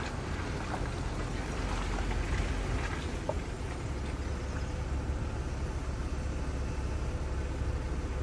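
Steady low rumble of a vehicle driving, engine and road noise heard from inside the cabin, with a few faint clicks.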